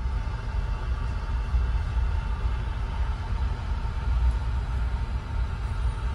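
A ferry's engines droning steadily, a low rumble heard from inside the enclosed passenger cabin.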